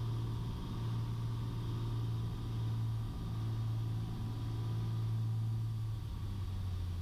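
Piper Cherokee Six's six-cylinder Lycoming engine and propeller running steadily on short final, the engine note dropping lower about six seconds in.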